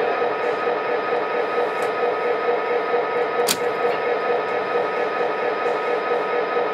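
Model train running on O-gauge three-rail track out of view: a steady hum with wheel and rail noise, and a single sharp click about three and a half seconds in.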